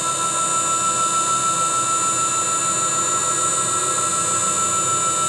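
CNC router spindle running steadily at speed: a constant high-pitched whine made of several steady tones.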